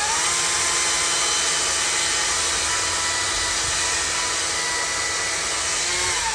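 An electric power tool's motor spins up just before this and then runs steadily at full speed, a high whine over a rushing noise. It is free-running with no load, and winds down near the end.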